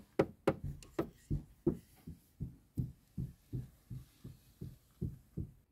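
Plastic toy figure's boots tapped on a dollhouse floor as footsteps: an even run of light taps, about three a second.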